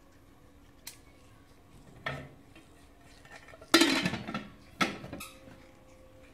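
Aluminium lid clanking as it is set and settled onto a large metal cooking pot, then a metal slotted spoon clanking as it is laid on the lid. Several sharp metal knocks with a short ring, the loudest a little under four seconds in.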